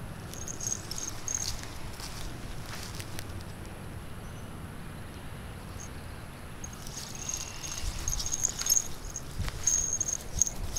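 High-pitched chirping in short repeated runs, once about a second in and again through the second half, over light rustling in grass and scattered soft knocks that grow louder near the end.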